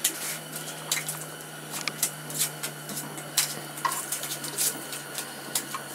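Scattered sharp clicks and rustles of hands handling a fish and line at a hole in the ice, at irregular intervals over a steady low hum.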